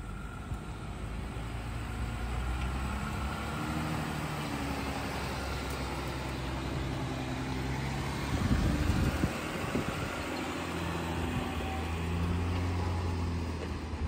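Jeep Gladiator Mojave's engine pulling at crawling speed up a steep dirt obstacle, its note rising and falling in steps with the throttle. A brief rough rumble about eight to nine seconds in.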